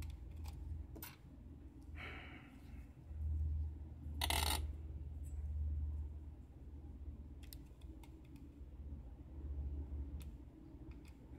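Faint scattered clicks and scrapes of a hook pick working the pins of an Abus euro cylinder lock during single-pin picking, with a short, louder rustling scrape about four seconds in.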